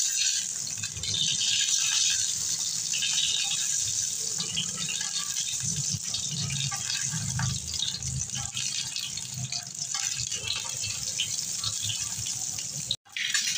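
An egg frying on a hot flat griddle (tawa), sizzling and crackling steadily, with a low rumble underneath. The sound cuts out for an instant near the end.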